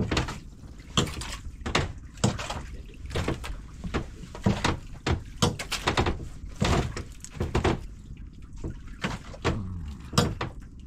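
Irregular knocks, clicks and splashes of water as a squid handline is hauled in by hand over the side of a wooden outrigger boat and a squid comes up on its jig, over a low rumble.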